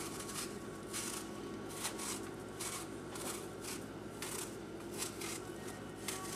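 Small paring knife cutting the skin off an apple in short scraping strokes, about one a second.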